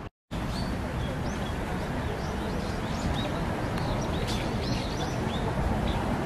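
Birds chirping, many short repeated calls, over a steady outdoor background murmur.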